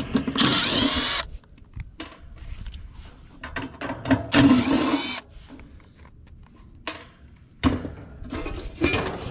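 Cordless drill-driver backing out the screws of a condenser's sheet-metal service panel: two short whirring runs, each about a second long, with the motor's pitch rising and falling. Near the end come a few knocks and rattles as the metal panel is handled.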